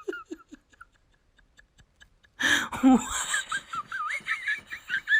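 Laughter: a short run of rhythmic laughs dies away within the first second. After a brief lull, a sudden loud burst comes about two and a half seconds in, followed by high-pitched, wavering laughter.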